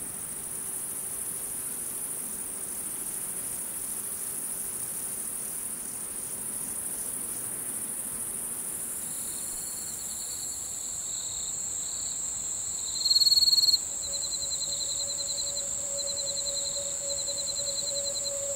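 Insects chirping in a steady, very high-pitched chorus, joined about halfway by a lower pulsing trill that comes in a loud burst at about 13 seconds. A steady low tone sets in about three-quarters of the way through.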